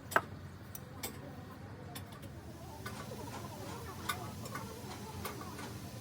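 Irregular light clicks and taps, the sharpest just after the start, over a low steady hum.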